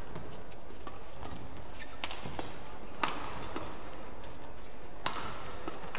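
Badminton rackets striking the shuttlecock during a doubles rally: a few sharp hits, roughly a second apart, over a steady hall background.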